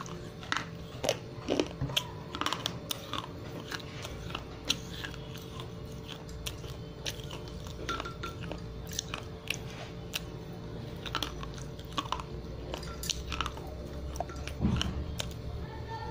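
Slate pencil being chewed: a dense run of sharp, dry crunches and clicks, with a fresh bite off the pencil near the end.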